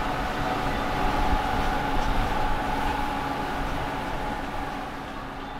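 Engines of a large motor yacht and its escorting tugboat running: a steady low rumble with a faint high whine, easing off slightly near the end.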